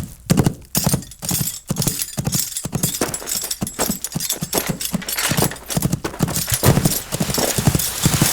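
Horse hoofbeats clip-clopping in a steady quick rhythm, about two to three hits a second.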